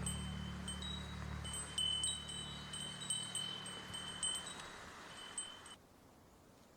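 Tinkling chime tones ring over a fading low sustained note, the tail of the background music. It cuts off abruptly about six seconds in, leaving faint outdoor ambience.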